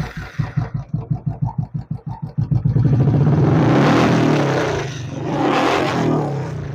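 Royal Enfield Classic 350 BS6 single-cylinder engine just started, idling with an even beat, then revved twice and dropping back to idle. It runs without the clutch-side chain clatter it was brought in for, the sign that the clutch-side repair has cured the fault.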